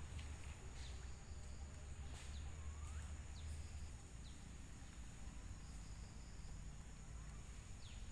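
Outdoor ambience: a steady, thin, high insect drone over a low rumble, with a few short, high, falling chirps scattered through it.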